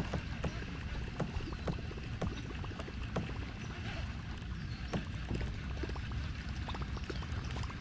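Sounds of a kayak on the water: small irregular clicks and light knocks over a steady low rumble.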